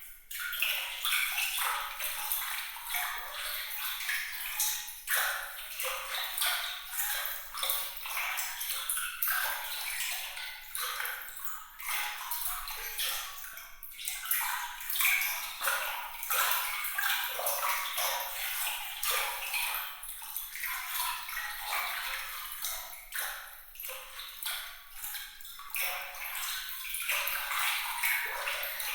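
Light, bright water trickling and splashing, a continuous patter of many small droplet sounds with nothing deep underneath.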